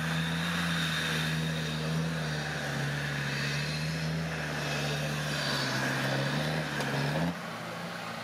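Off-road 4x4's engine running under steady throttle, its pitch wavering slightly up and down; the sound drops away suddenly about seven seconds in.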